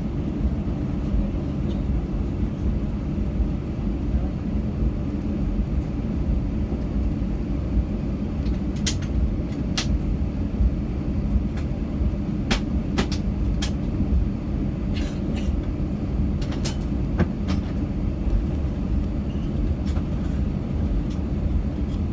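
Airbus A321 cabin on the ground, a steady low rumble of the engines at idle and the aircraft rolling, with a scattering of short sharp clicks and rattles, most of them in the middle of the stretch.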